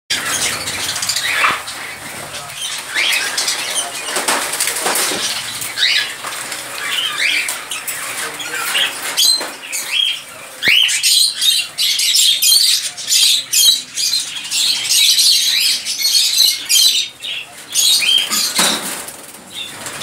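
African grey parrot making its own sounds: short rising whistles scattered among bursts of rasping, hissing and rustling noise.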